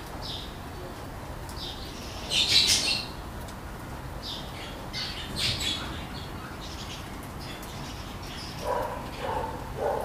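Parakeets chirping in short high calls, with one louder burst of chirping about two and a half seconds in. Near the end come three short, lower-pitched calls.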